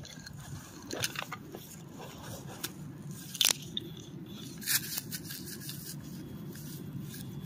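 Metal-detecting pinpointer probe and gloved hand poking and scraping through dry grass and dead leaves, giving a few sharp crackles and scrapes, over a low steady rumble.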